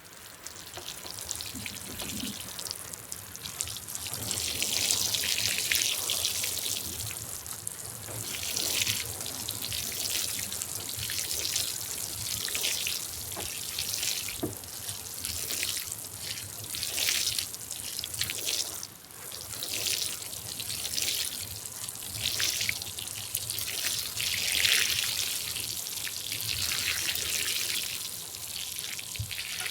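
Trickling and splashing water that swells and fades in irregular surges every few seconds.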